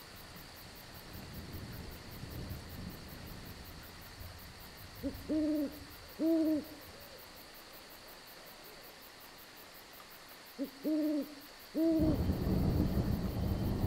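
An owl hooting in two series about five seconds apart, each a quick short hoot followed by two longer, deep hoots, over a faint steady chorus of crickets. Near the end a deep rumble of thunder swells in and becomes the loudest sound.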